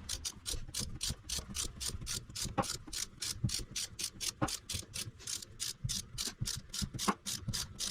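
Rapid, even clicking, about five clicks a second, as the jaw screws of an 8-inch Cushman four-jaw lathe chuck are turned to back the jaws out.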